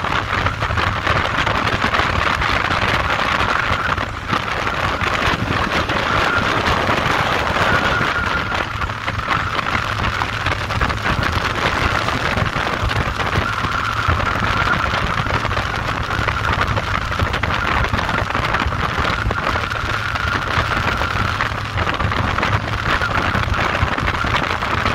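Cruiser motorcycle running at steady cruising speed, with engine rumble under a constant rush of wind and road noise. The loudness dips briefly about four seconds in.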